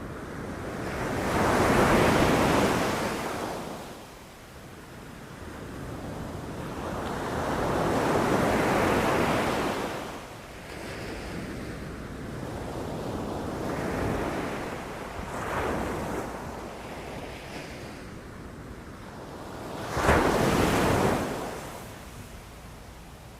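Ocean waves breaking on a shore, each surge swelling and falling away over a few seconds; four or five waves come in, the last one breaking suddenly near the end.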